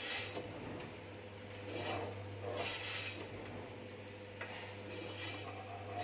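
Electric meat slicer running with a steady hum while its spinning blade cuts half-frozen beef, each pass of the carriage making a short hissing cut, several times at irregular intervals.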